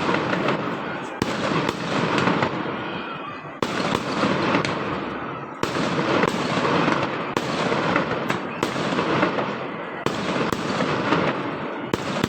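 Fireworks and firecrackers going off in a dense barrage: a continuous crackle with sharp bangs landing every second or two.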